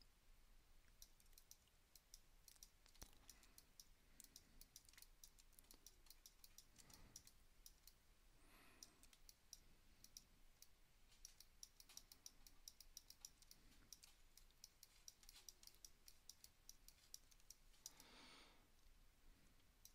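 Near silence, with many faint, quick clicks of a computer mouse and keyboard.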